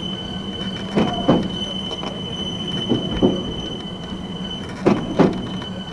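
Fuji Kyuko 8500 series electric train rolling slowly, its wheels knocking over rail joints in pairs, three pairs about two seconds apart, over a steady high tone and a low hum, heard from the driver's cab.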